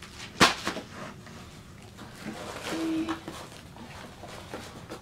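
Cardboard packaging being handled: a sharp tap about half a second in, then lighter knocks and scraping as a cardboard insert is lifted out of a shipping box.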